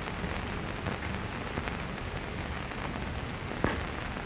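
Steady hiss and crackle of an early sound-film soundtrack between lines of dialogue, with one short click near the end.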